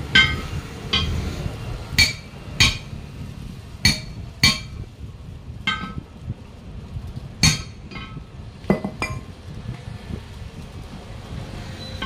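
Hand tool striking the steel rim of a truck wheel: about a dozen sharp metallic clanks at irregular intervals, each ringing briefly, as the tyre is worked loose from its rim.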